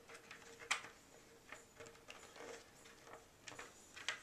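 Faint plastic clicks and scrapes of a chainsaw helmet's suspension harness tabs being handled and pushed into the connection slots of the hard plastic shell, a few scattered clicks with the sharpest about three-quarters of a second in.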